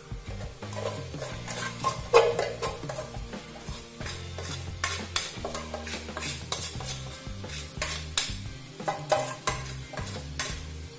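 Cooked rice being scraped out of a pot with a plastic spatula into a frying wok: repeated short scrapes and knocks over a light sizzle, with background music underneath.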